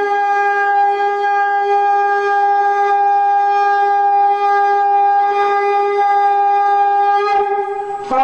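A shofar sounded in one long steady blast held for about eight seconds, its note wavering briefly near the end.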